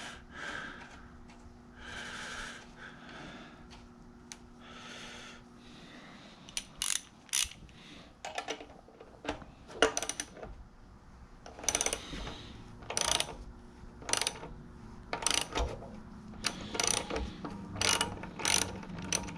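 Hand socket ratchet clicking in short irregular bursts as it works a thread-chasing tool back and forth through the vise's damaged threads, with soft scraping and handling sounds for the first few seconds.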